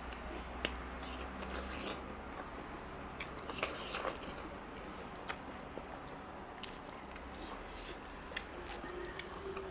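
A person eating close to the microphone: chewing with scattered small clicks and moist mouth sounds over a faint steady hum.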